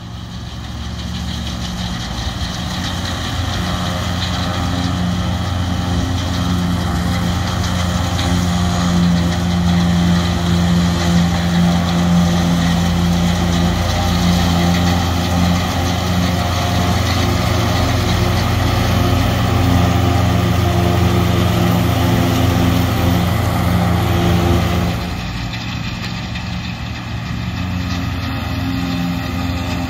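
New Holland 1900 self-propelled forage harvester, driven by its Caterpillar 3306 six-cylinder turbo diesel, running steadily under load as it chops haylage from a windrow. About 25 s in, the sound drops a little and turns more distant.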